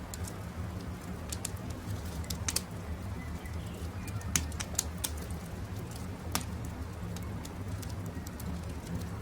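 Campfire crackling, with sharp pops about two and a half, four and a half and six and a half seconds in over a steady low rumble, and faint bird calls in the background.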